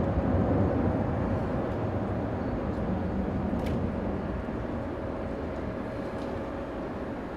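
Airbus A330neo's two Rolls-Royce Trent 7000 turbofan engines as the airliner climbs steeply away: a steady deep rumble with a mid-pitched hum running through it, slowly fading.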